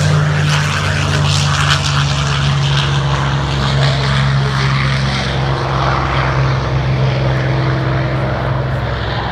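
Propeller aircraft engine running, a loud steady low drone.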